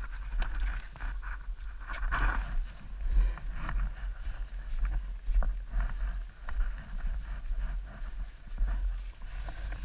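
Snowmobile heard through an onboard microphone: a low, uneven rumble with buffeting that rises and falls irregularly, and scattered knocks.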